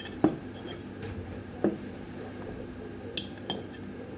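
Four light metal knocks and clinks, spread out, from the parts of a Jialing JH50 moped's kick-start assembly being worked by hand; they rattle because their holes and shaft have worn loose.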